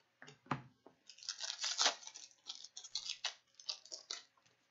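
Upper Deck Series 2 hockey card retail pack being opened: its wrapper crinkles and tears in a quick run of rustling crackles, after a few light taps of cards set down on the counter.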